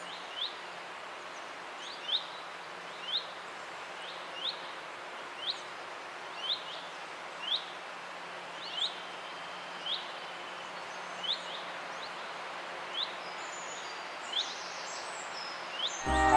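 Birds in woodland over a running stream: a steady rush of water with a bird repeating a short, high chirp about once a second. A swing tune cuts in at the very end.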